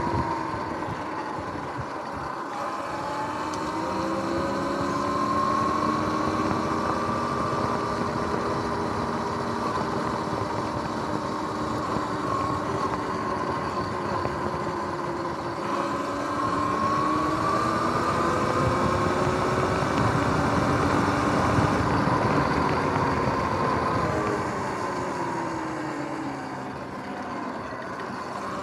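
Electric dirt bike's motor and drivetrain whining over wind and tyre noise. The pitch rises and falls as the bike speeds up and slows down, climbing twice and dropping away near the end.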